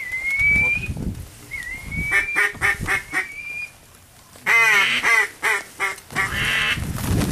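Duck calls blown by a hunter: a long whistled note, a second whistled note, then runs of quick quacking notes, a fast descending series, and a rapid chatter near the end.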